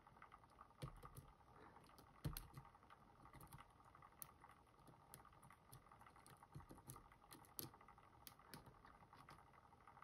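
Faint, scattered small metallic clicks and ticks of a thin lock pick tapping the pins of a Van Lock tubular-style padlock held under tension by a music wire tensioner, the pins being hit again and again.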